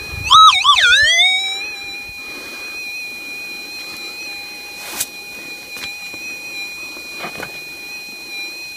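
Minelab SDC 2300 gold detector's steady threshold tone, broken shortly after the start by a loud warbling target signal that swings up, wobbles, dips and climbs back to the threshold. It is the signal of a small metal target in material passed over the coil. A single sharp click about five seconds in.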